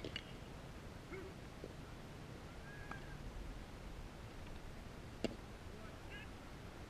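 A baseball smacking into a catcher's mitt as the batter swings through a pitch, a single sharp pop at the start, followed about five seconds later by a second, fainter sharp knock. A few faint short chirping calls come in between.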